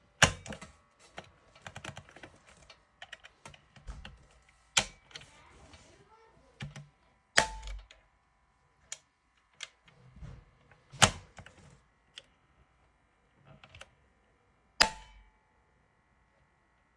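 Sharp plastic clicks and light knocks from a fire alarm manual call point being handled and reset, with its push button and cover snapped back into place: five loud clicks, some with a short ring, among many small taps.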